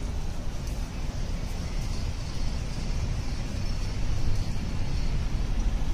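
Steady outdoor street background noise with a heavy low rumble, like nearby traffic.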